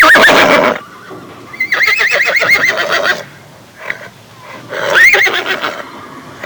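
Horse neighing three times: a call right at the start, then a long quavering whinny with a rapidly wavering pitch, then a shorter neigh about five seconds in.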